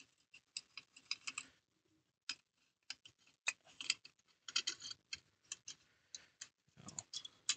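Light, irregular metallic clicks and ticks of rifle parts being handled and fitted: a recoil spring on its guide rod being slid and seated into the upper receiver of a WK181-C rifle during reassembly.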